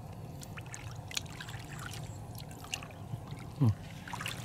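Shallow muddy water sloshing and trickling as hands grope through it, with scattered small splashes. About three and a half seconds in there is a brief falling voice sound, like a grunt.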